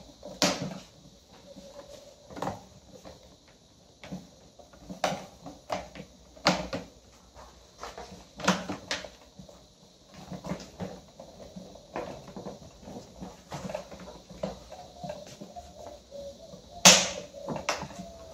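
Plastic clicks and knocks from the front grille of an 18-inch Lasko pedestal fan being handled and clipped shut, coming irregularly every second or two, with the loudest knock near the end.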